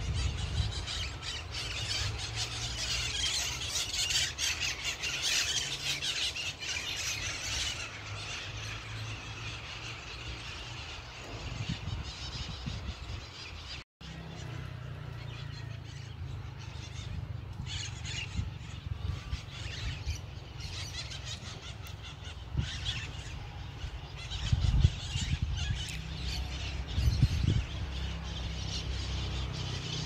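Many birds calling and chattering in a tree, thickest in the first several seconds, over a low steady rumble. After a brief dropout midway the rumble is stronger, with scattered calls and a few loud thumps near the end.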